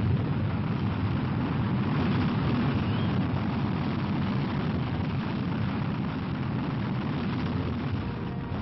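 Redstone missile's liquid-fuelled rocket engine at liftoff: a loud, steady, rough noise of the exhaust that slowly fades as the rocket climbs away.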